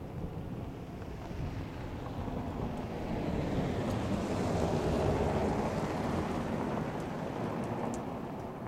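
Wind gusting, a rushing noise that swells to its loudest about halfway through and then eases off.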